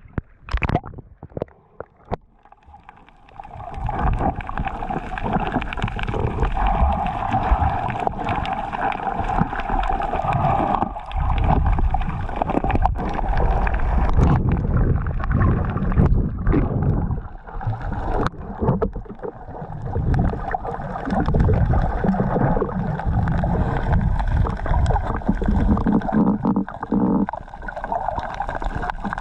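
Muffled underwater noise from a camera in a waterproof housing: water sloshing and rumbling under a steady hum, quieter at first and louder from about three seconds in.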